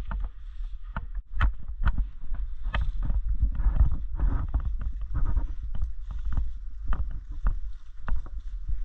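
Irregular knocks and clicks, about two or three a second, from footsteps and gear jostling on a player who is moving, over a steady deep rumble of wind or handling on the microphone.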